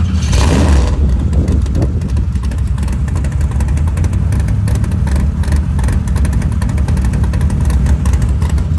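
Off-road race truck engine running with a steady low rumble as the truck rolls slowly past at low revs. There is a short rush of noise in the first second.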